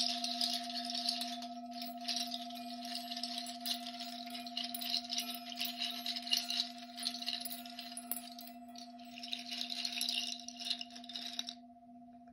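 A shaker rattled in long shaken phrases, pausing briefly about two seconds in and again near nine seconds, and stopping about eleven and a half seconds in. Under it a bell holds one steady low ringing tone throughout.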